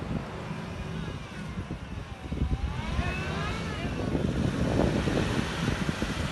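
Toyota Fortuner SUV driving hard over loose sand, its engine working and rumbling under load, louder for a moment about three-quarters of the way through. Voices call out briefly about halfway.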